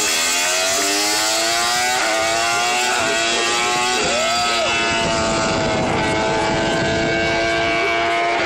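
MotoGP racing motorcycle engine accelerating, its note rising in pitch and dropping at gear changes about two and four seconds in, then holding a steady high note.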